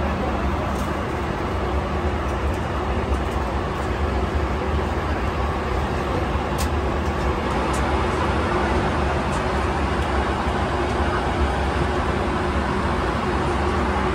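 Steady cabin drone of a Boeing 757 in flight: engine and airflow noise with a constant low hum.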